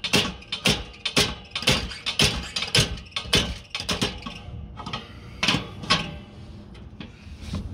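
SUPCO Bearing Buster repeatedly slammed against a blower bearing to drive it along the shaft: sharp metal knocks about two a second, pausing about halfway through and then fewer. The bearing is stuck tight on a rusted shaft.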